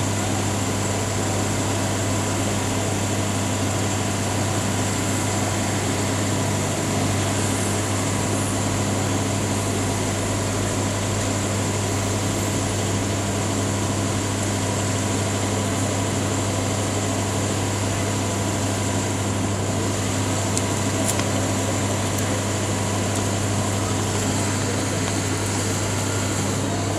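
Steady drone of a parked ambulance idling: a low engine hum under the even hiss of its air-conditioning blower, with no siren.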